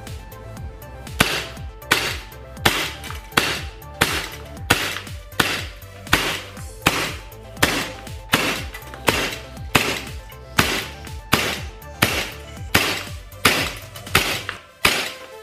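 CO2-powered airsoft gun firing a long string of single shots, about three every two seconds, sharp cracks starting about a second in. It is a velocity test of a CO2 gas, with each shot's speed recorded.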